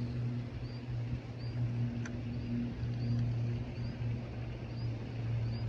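Steady low motor hum running evenly throughout, with faint short high chirps repeating every second or so.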